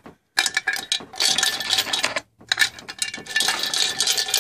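Small rocks clinking and clattering as they are handled and dropped into the feed hole of a homemade angle-grinder rock crusher, before the grinder is switched on. An irregular run of knocks and rattles with two short pauses.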